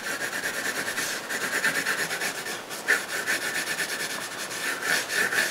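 Pencil shading on drawing paper: rapid, even back-and-forth scratching strokes laying in shadow.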